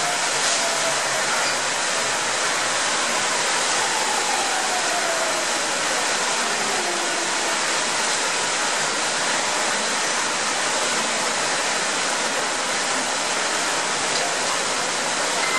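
Steady loud rush of pouring water, rainwater overflowing the station's drain pipes in a heavy downpour. Under it a Yamanote Line electric train pulls into the platform, its motor whine falling in pitch as it slows about four seconds in.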